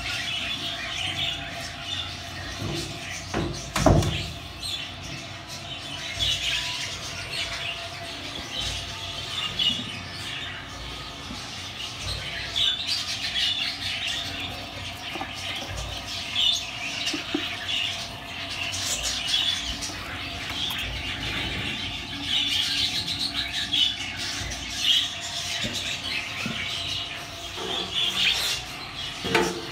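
Budgerigars chirping and squeaking, with many short high calls going on all the while. A knock about four seconds in and another near the end.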